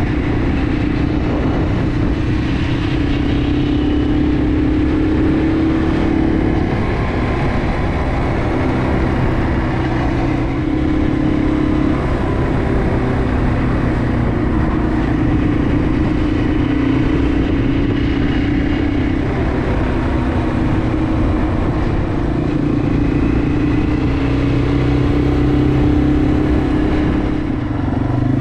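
Yamaha TW200's single-cylinder four-stroke engine running steadily while riding, its pitch shifting up and down slightly several times as the speed and throttle change.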